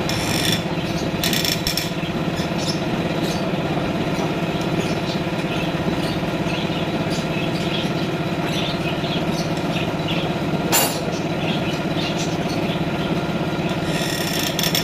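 Car engine idling steadily, with a few sharp clicks or taps over it.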